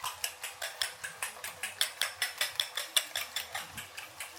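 Fork or whisk beating eggs in a bowl: a fast, even clicking of metal against the bowl, about six strokes a second.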